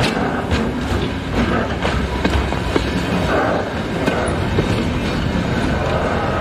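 Loaded container flatcars rolling past close by: a steady rumble of wheels on rail with repeated clicks as the wheels cross rail joints.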